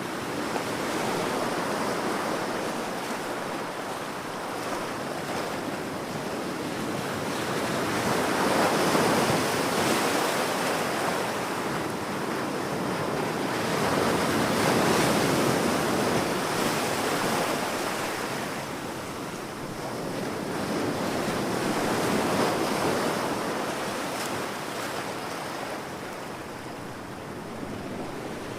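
Ocean waves breaking on a beach, the surf swelling and easing in slow surges every six or seven seconds.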